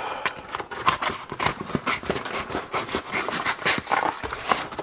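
A stiff sheet of Flexoid jointing paper rustling and crackling as it is handled and moved about, with irregular crackles throughout.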